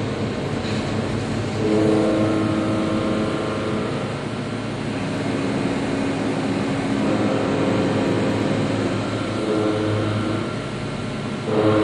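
CNC milling machine cutting metal with a Walter BLAXX indexable shoulder milling cutter: a steady cutting noise with whining tones that change pitch several times, and a sudden louder onset near the end.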